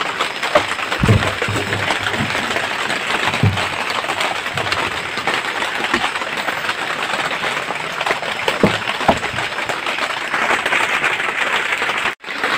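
Heavy rain falling steadily on the hut, an even hiss, with a few dull knocks scattered through.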